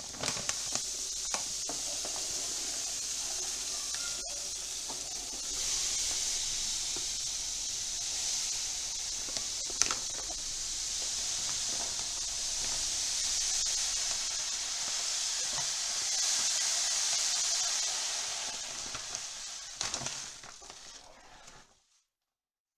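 Granulated sugar pouring from a plastic bag into a large aluminium pot of hot herbal decoction, making a steady hiss as the sugar syrup for chyavanprash is made. A few sharp clicks come from the ladle against the pot. The hiss fades away near the end.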